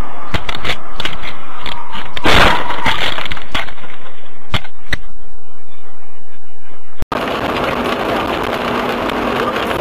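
Car crash recorded by a dashcam: a run of knocks, then a loud crash with cracking and breaking about two to three seconds in as the windshield shatters, and a couple more knocks after it. At about seven seconds it switches abruptly to the steady tyre and rain noise of a car driving on a wet road.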